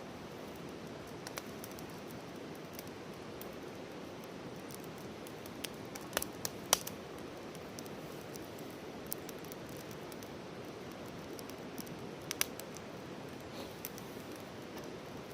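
Wood campfire burning: scattered sharp crackles and pops over a steady low hiss, the loudest cluster about six seconds in and another sharp pop near twelve seconds.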